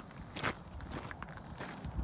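Footsteps on a dry dirt and gravel desert trail, several uneven steps.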